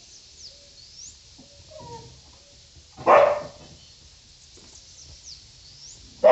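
A pet dog barks once, about three seconds in, after a few faint whines.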